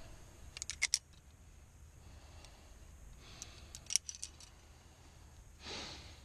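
Metal climbing hardware (carabiners and gear) clinking in two quick clusters of sharp clicks, one about half a second in and another around four seconds in. A short breathy rush of noise near the end.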